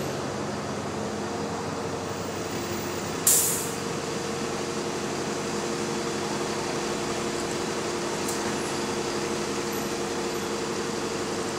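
Double-decker bus running by with a steady whine from its engine cooling fan over the engine noise. A short, sharp hiss of air brakes about three seconds in, and a fainter one later.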